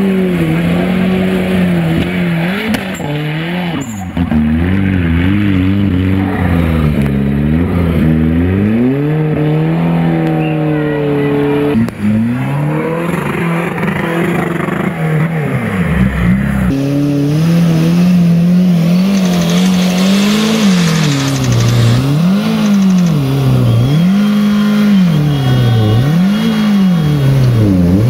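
Engines of off-road trial 4x4s revving hard, their pitch rising and falling repeatedly as they claw up a steep muddy slope. In the last part the throttle surges in regular pulses about every two seconds while the wheels spin.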